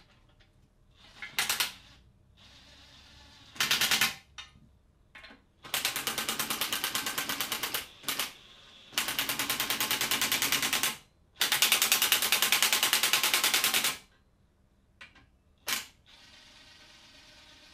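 Cordless impact driver hammering in short bursts and three longer runs of two to three seconds each, the rapid rattle of its impact mechanism working a fastener.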